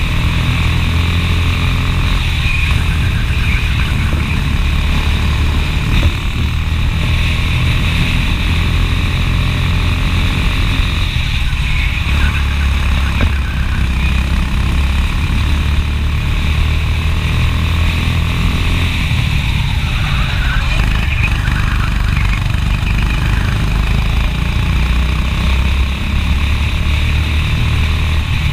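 Racing kart engine running at speed, heard loud and close from a camera mounted on the kart, its note shifting as the kart goes through the corners.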